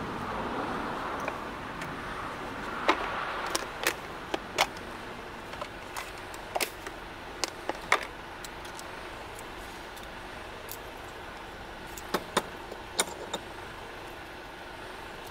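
Sharp clicks and light clinks of camping cookware and a small gas stove being picked up and set down on a small wooden table. They come in two clusters, a few seconds in and again near the end, over a steady background hum.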